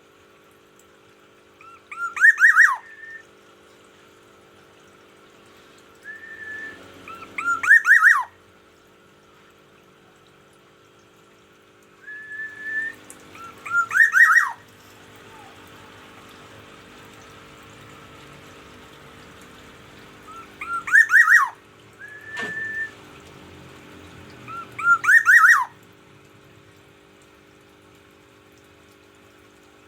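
Black-naped oriole (kepodang emas) calling five times, a few seconds apart. Each call is a short whistled note followed by a quick run of loud falling notes. This is the noisy morning calling that the bird uses to mark its territory.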